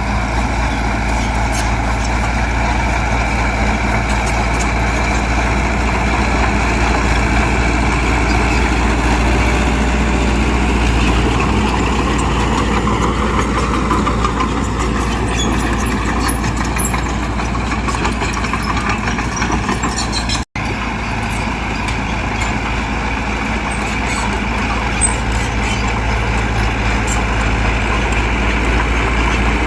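Heavy diesel engine of earthmoving machinery running steadily, its pitch shifting slowly around the middle. The sound cuts out for an instant about two-thirds through.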